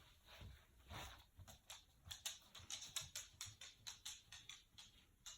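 Faint run of quick nasal snorts, three or four a second and closest together in the middle: a snore-like snuffling likened to a man with a chronically blocked, runny nose.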